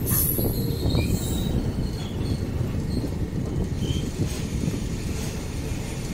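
Indian Railways passenger coach rolling along the track, heard from the carriage doorway: a steady low rumble of wheels on rail, with brief high wheel squeals every second or so.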